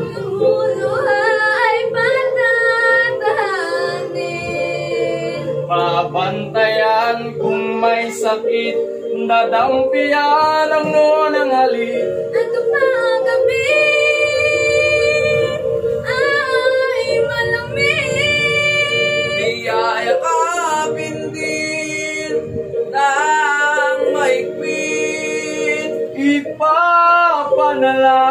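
Young voices, a girl and teenage boys, singing a Tagalog song together over steady held accompaniment tones.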